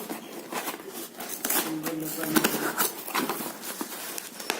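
Hands opening a cardboard delivery box: irregular rustling, scraping and clicking of cardboard and packaging.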